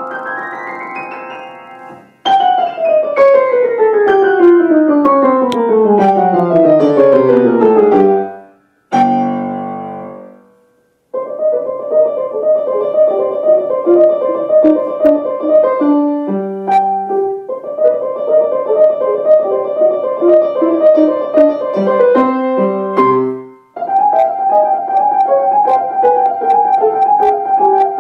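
Grand piano played solo: a quick rising run, then fast runs falling together down to the bass, and a chord that dies away about ten seconds in. After that, rapid repeated-note figures high up, broken twice by short low notes and chords.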